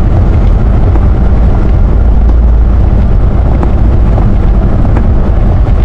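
Steady, loud low rumble inside a semi-truck's cab at highway speed on a slushy, snowy road: the diesel engine and tyre noise.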